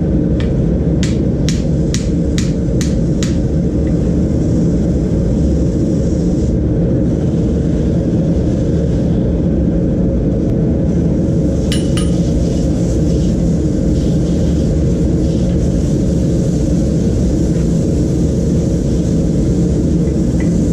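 Hand hammer striking red-hot mower-blade steel on an anvil, a quick run of ringing blows about three a second in the first few seconds. Under it the gas forge's burner runs with a steady roar, and a metal clink comes near the middle.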